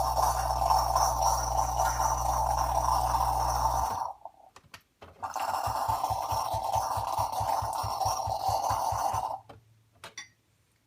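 Saeco Incanto Classic espresso machine's pump running hot water through the steam wand to clear the steamer line. It runs steadily with a hum and stops about four seconds in, then starts again a second later with a rapid low pulsing and stops again near the end.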